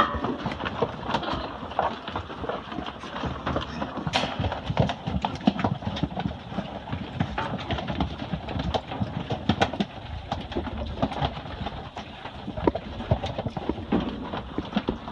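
Wild hogs feeding on a deer carcass in a trailer: irregular crunching, tearing and chewing, with frequent sharp clicks and knocks.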